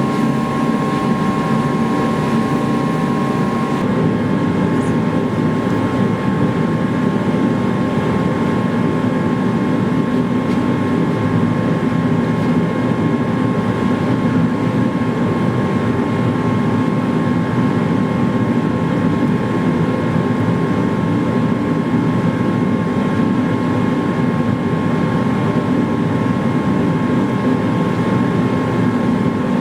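A forge running with a steady, unbroken rushing noise, the furnace at work heating the blade for heat treatment.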